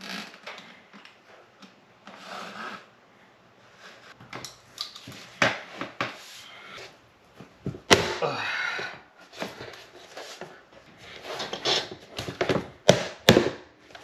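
Vinyl plank being scored with a utility razor knife: a run of scraping strokes, broken by a few sharp knocks or snaps, the loudest about halfway through and two more near the end.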